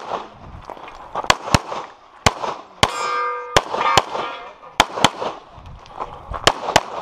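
Limited-division competition pistol fired in quick pairs and single shots, about nine in all, with short pauses between strings. About three seconds in, one shot is followed by a ringing metallic clang: a steel target being hit.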